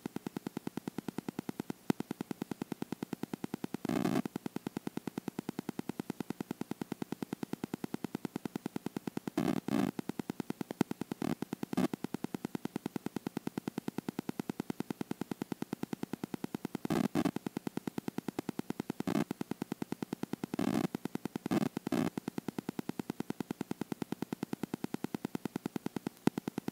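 Synthesizer music with a rapid, steady pulsing beat that swells louder several times.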